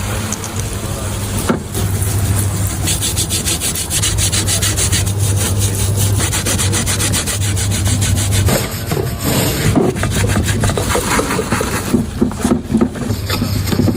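Rapid back-and-forth scrubbing and scraping on the metal parts of a dismantled car steering rack as it is cleaned and serviced, over a steady low hum.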